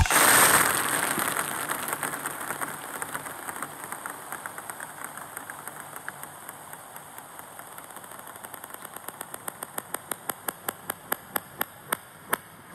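A run of light ticks like a table-tennis ball bouncing, played backwards: fast and faint at first, then slower and louder toward the end, ending on a single sharp tick. Early on it sits under a fading noisy wash from the music's last hit.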